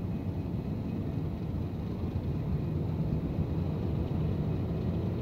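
Diesel locomotive engine running as the locomotive moves past close by, a steady low rumble.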